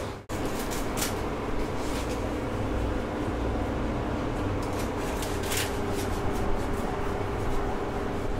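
A large knife cutting through a roast porchetta's crisp crackling skin, in a few short, sharp scraping strokes, over a steady mechanical hum in the shop.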